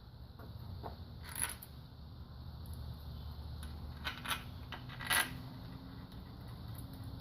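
Metal engine parts and tools clinking as they are handled and set down, three short ringing clinks with the last one the loudest.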